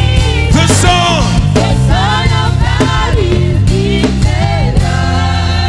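Live gospel worship band playing, with bass and drums under a melody that glides up and down in short phrases.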